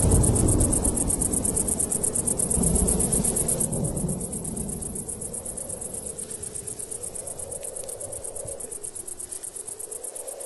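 Crickets chirping in rapid, even pulses, over a low rumble that drops away about four seconds in.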